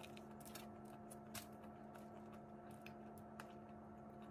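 Faint scattered clicks and small crackles of boiled crawfish being peeled by hand and eaten, over a steady low hum.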